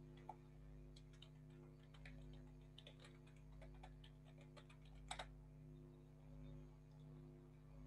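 Faint computer keyboard typing: scattered keystrokes for about five seconds, the loudest two close together about five seconds in, after which the keys stop. A steady low hum runs underneath.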